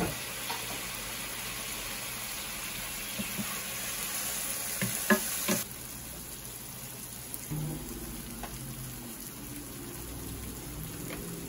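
Onion-tomato masala sizzling in a stainless steel pan just after a splash of water, with a few sharp knocks of the wooden spatula against the pan. About five and a half seconds in, the sizzle drops to a softer, quieter frying sound.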